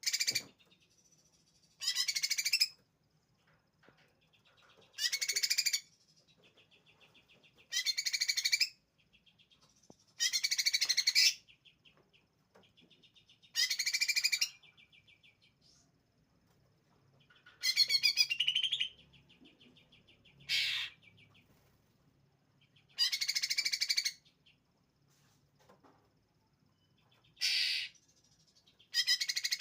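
A caged songbird singing in loud, high, short bursts, about ten of them at intervals of two to three seconds, with fainter trills between. This is the full, rapid-fire song a bird gives once it has settled into singing.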